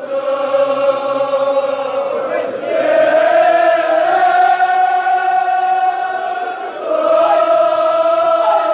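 Male voices chanting a Kashmiri marsiya lament together in long, drawn-out held notes, with a new phrase starting about two and a half seconds in and again near seven seconds.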